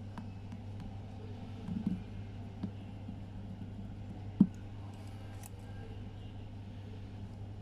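Small clicks and taps of a small screwdriver and fingers handling a metal watch case and bracelet, with one sharper knock about four and a half seconds in, over a steady low hum.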